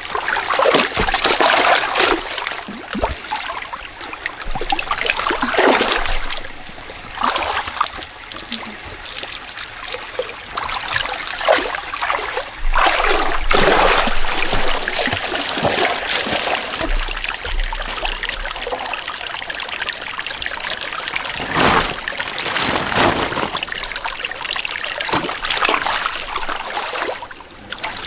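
Shallow muddy water splashing and sloshing in irregular bursts as it is stirred by a person working through it.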